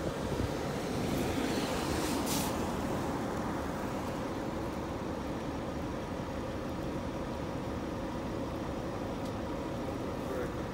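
Truck engine running steadily, with a short hiss about two seconds in.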